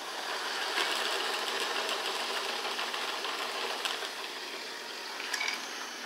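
Homemade mousetrap boat's paddle wheel spinning freely in the air as the released mousetrap arm pulls the string off its axle via a pulley: a steady mechanical whirr that slowly dies away as the wheel winds down.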